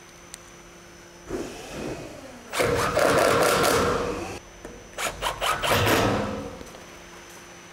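A cordless drill driving screws into timber to fix a metal fascia bracket, in two bursts. A longer one builds up from about one and a half seconds in and stops sharply near four and a half seconds. A shorter, stuttering one follows around five to six and a half seconds.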